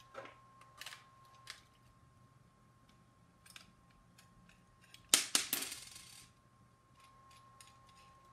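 Hard plastic and metal parts of a foam-dart blaster being handled on a wooden workbench: a few light clicks and knocks, then about five seconds in a brief burst of rattling clatter that lasts about a second.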